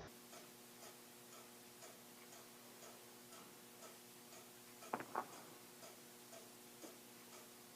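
Faint clock ticking steadily about twice a second. About five seconds in come two sharp joint cracks in quick succession, from a spinal adjustment.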